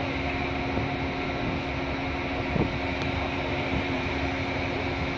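Steady hum of a container ship's machinery: an even rushing noise with several held tones over it, and one faint knock midway.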